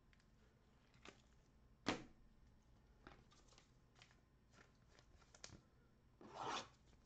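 Trading cards and pack wrappers being handled: a few soft clicks and taps, the loudest about two seconds in, and a rustle of about half a second near the end.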